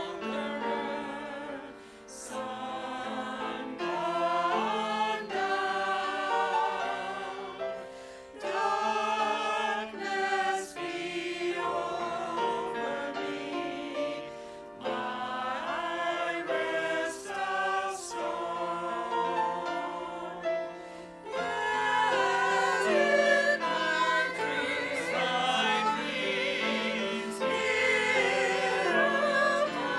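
Congregation singing the offertory hymn in phrases with short breaks between them, louder in the last third.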